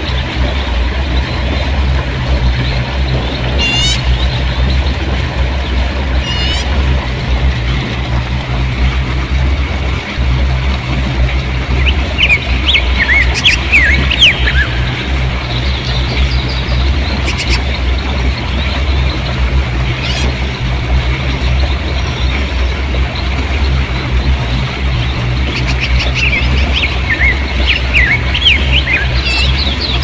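River water rushing and splashing over rocks in a steady torrent with a strong low rumble, while small songbirds chirp and twitter now and then: a few short calls early on, then longer bouts of twittering in the middle and near the end.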